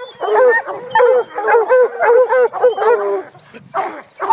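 Several bluetick coonhounds bawling at a tree, a rapid run of about three barks a second with a short lull a little past three seconds in: hounds barking treed.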